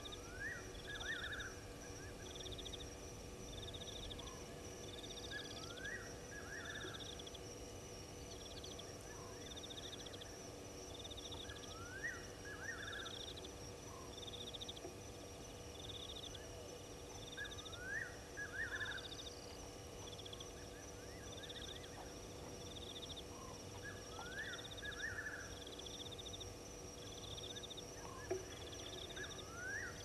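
Night chorus of insects and frogs at a waterhole. A steady high-pitched insect trill runs under a pulsed chirping that repeats about once a second, and a rising call followed by a short trill comes about every six seconds.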